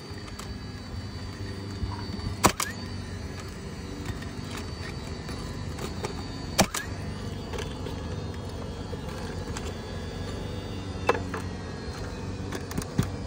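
Three sharp strikes a few seconds apart as nails are driven into a replacement asphalt shingle at its nail line, over a steady low mechanical hum.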